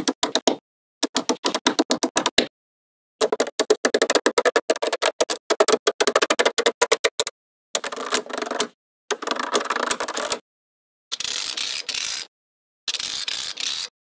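Small magnetic balls clicking and snapping together in quick runs as rows of balls are pressed onto a magnetic-ball model. The clicks come in short takes with abrupt silent breaks between them, and they turn into a denser, even clatter near the end.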